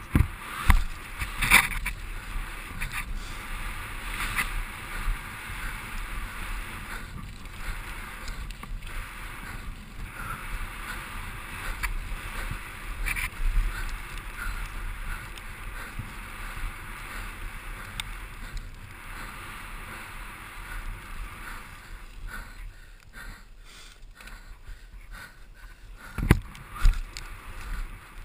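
Mountain bike descending a dirt trail at speed: a steady rushing noise of tyres on dirt and the bike rattling over the ground, with sharp knocks from bumps about a second in and again near the end.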